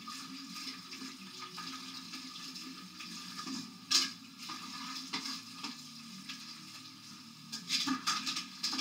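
Faint kitchen handling noises: light clicks and scrapes over a low steady hum, with one louder knock about four seconds in and a few more clicks near the end.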